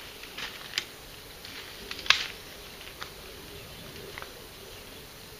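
A shotgun being handled and readied to fire: a few light clicks and knocks, with one sharper snap about two seconds in, typical of a break-action being closed.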